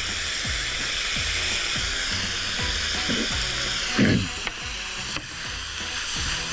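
Beef cubes sizzling in hot oil in a frying pan while being stirred with a wooden spoon, with one short knock about four seconds in. Background music plays underneath.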